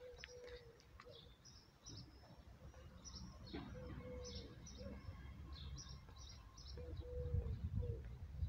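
Small birds chirping in quick clusters, with a lower call repeating every few seconds over a low background rumble.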